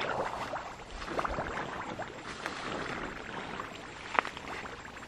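Dense grass and weeds rustling steadily as something pushes through them, with one short snap about four seconds in.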